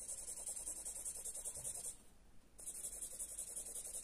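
Alpino Maxi felt-tip marker rubbing back and forth on paper in quick colouring strokes, a faint fast scratching. It stops for about half a second near the middle, then carries on.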